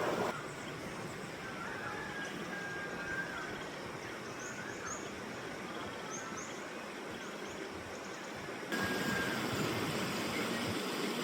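Mountain river flowing steadily, with small birds calling over it: a few short whistled notes, then several high chirps in the middle. The water sound drops suddenly just after the start and jumps back up near the end.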